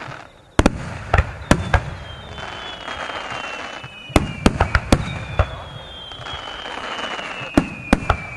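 Aerial fireworks in a rapid-fire star mine barrage: clusters of sharp shell bursts, about a dozen in all, with a crackling hiss between them and long whistling tones that slowly fall in pitch.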